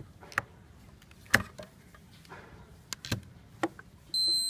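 Two-pole voltage tester's probes clicking and tapping against the contactor's terminals several times, the sharpest about a second and a half in. Near the end the tester's buzzer starts a steady high-pitched beep as it registers a reading.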